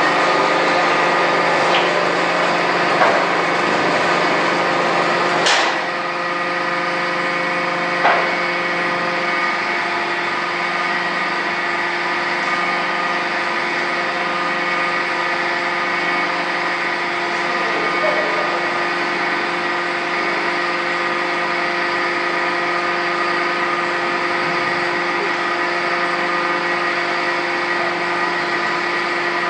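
Brick-plant machinery running steadily with a hum of several held tones, and a few sharp knocks in the first eight seconds.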